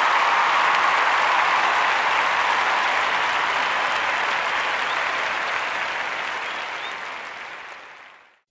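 Crowd of spectators applauding at a race finish line, a dense, steady clapping that fades out near the end.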